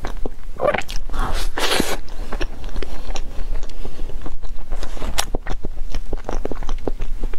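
Close-miked chewing of a soft matcha mille crêpe cake: a steady run of small mouth clicks and smacks.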